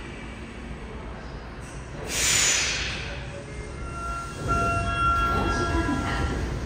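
A stopped subway train lets out a loud burst of hissing air about two seconds in. Then the platform screen doors and the train's doors slide open, with steady electronic chime tones and low mechanical rumbling.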